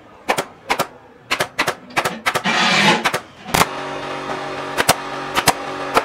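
Pneumatic staple gun firing again and again, sharp snaps at uneven gaps of a fraction of a second to about a second, driving staples through fabric into a wooden seat board. A short hiss comes just after two seconds in, and background music with a steady hum enters a little past halfway.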